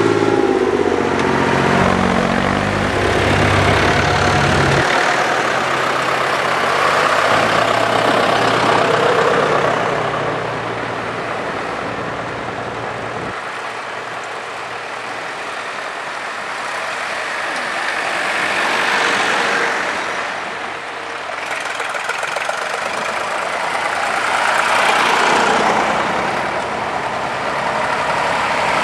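Vintage tractors driving past one after another, each engine swelling and fading as it goes by. A clear, steady engine note from the nearest tractor stops about five seconds in.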